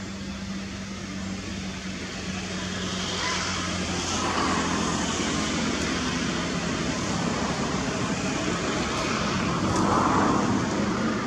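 Motor-vehicle noise: a low hum and steady rushing sound that swells about three seconds in and again, louder, near the end, like traffic passing.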